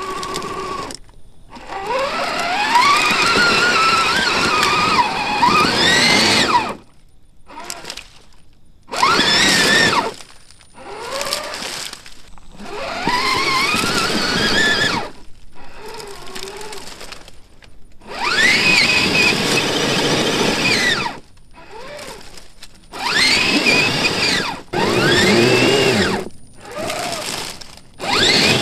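Electric motor and gear whine of a 1/10-scale RC crawler driving in short throttle bursts, the pitch rising and falling with motor speed, with brief pauses between bursts.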